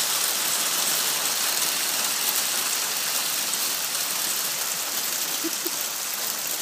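Hail falling heavily on pavement and parked cars: a dense, steady hiss of many small hits.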